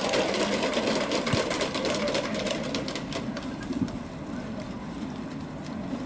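Scattered clapping, thinning out after about three seconds, over a steady low rumble of wind.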